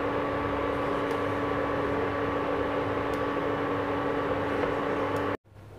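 Steady electric hum from a motor or fan, with a soft hiss under it and a few faint ticks, cutting off suddenly near the end.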